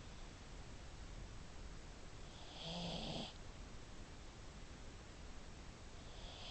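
A pug snoring in its sleep: one snore about two and a half seconds in and another starting near the end. Each is a low droning tone with a hiss over it, typical of a pug's short, flat-faced airway.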